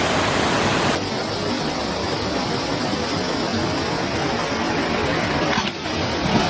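Steady rushing noise that changes abruptly about a second in and again near the end.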